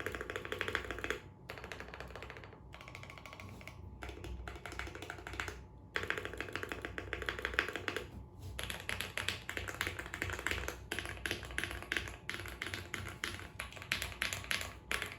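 Custom 60% mechanical keyboard being typed on quickly: lubed Equalz Banana Split linear switches on a polycarbonate plate, with PBT keycaps, in a Tofu case with foam under the PCB. The keystrokes come in fast runs of a second or few, with short breaks between the runs.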